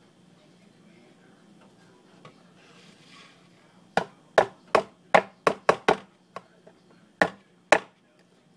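About nine sharp knocks on a hard tabletop, in an uneven run of quick strikes that starts about four seconds in, with a pause before the last two.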